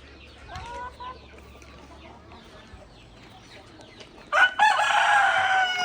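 Chickens clucking faintly, then a rooster crows loudly, one call of about two seconds near the end.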